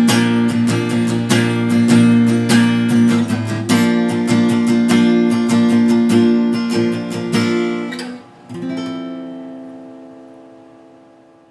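Instrumental music of strummed acoustic guitar chords, steady until about eight seconds in, then a final chord that rings and slowly fades away.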